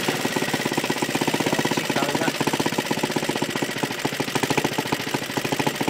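Four-stroke Suffolk engine of a Qualcast Commodore cylinder lawnmower running steadily, a fast, even run of firing pulses.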